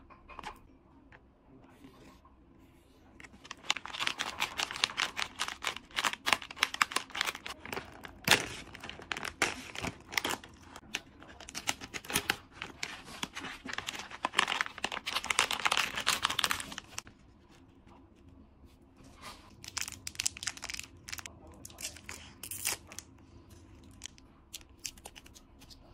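Plastic candy pouch being torn open and crumpled by hand, with dense, loud crinkling and tearing from about three seconds in until about seventeen seconds. Then lighter, scattered crinkling of the small clear plastic wrappers on individually wrapped soft candies.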